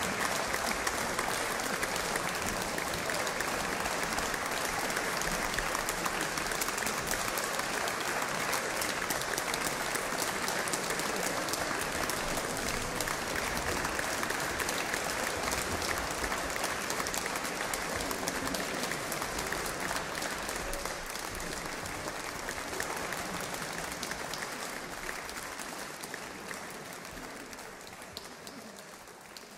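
Audience applauding: dense, steady clapping that thins and dies away over the last several seconds.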